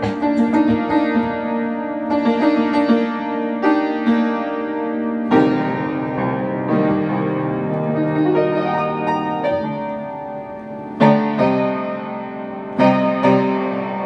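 Piano being played in sustained chords. The playing softens around ten seconds in, then several sharply struck chords come near the end.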